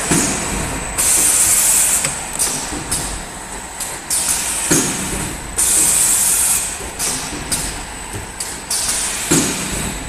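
Automatic PE-film shrink-wrapping machine running with a steady mechanical drone, broken by several loud bursts of hiss about a second long, and a few dull knocks.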